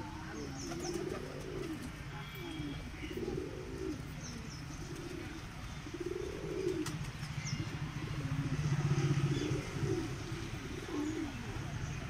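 A flock of white doves cooing, one soft low call after another about every second, with a few faint high chirps and a steady low hum underneath.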